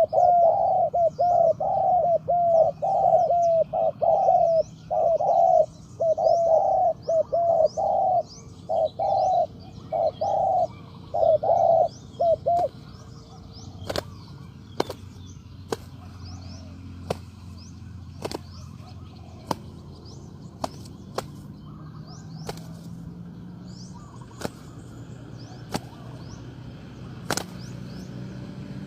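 Spotted dove cooing in a rapid series of short notes for about the first twelve seconds, with small birds chirping faintly high above. After that the cooing stops and a run of sharp clicks follows, about one a second.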